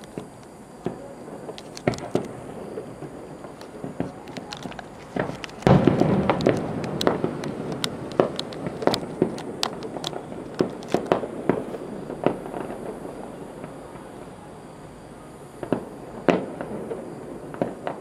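Aerial fireworks bursting at a distance: scattered sharp bangs, a loud boom about six seconds in, then several seconds of rapid bangs in quick succession, with a few more bangs near the end.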